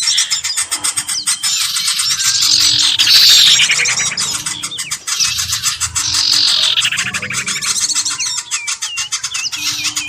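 A dense mix of small birds chirping and calling at once, with rapid trills, falling swept notes and whistles, played as a bird-lure recording. A short low note repeats about every second and a half underneath.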